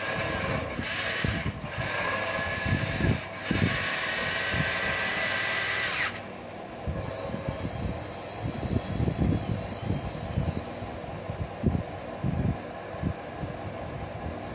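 Small electric drive motors of a radio-controlled model CAT excavator whining as the boom and arm are worked, starting and stopping in short spurts for the first six seconds. After that the whine turns fainter and higher, with a wavering pitch.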